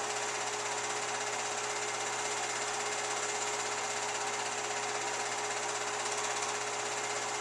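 Film projector running: a steady mechanical whir with a constant tone underneath.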